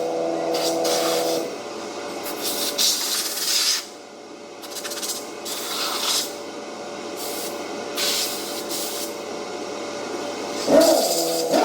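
Several short hissing bursts from a pressurised spray, each about a second long, with quieter gaps between them.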